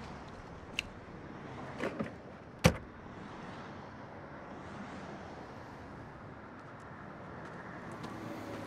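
Steady low rumble of a car, with a few light clicks and one sharp thud a little under three seconds in.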